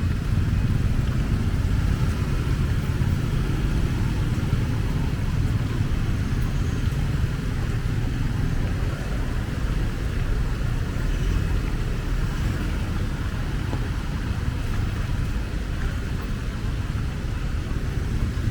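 Steady low rumble of a vehicle on the move, with no distinct events.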